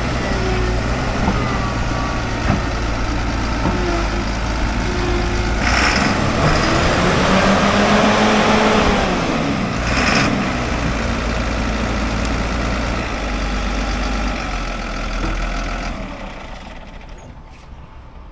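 Caterpillar D6N LGP crawler dozer's diesel engine running as the machine moves on its tracks. The engine gets louder and its pitch rises and falls back in the middle. About three-quarters of the way through, the engine is shut off and the drone dies away.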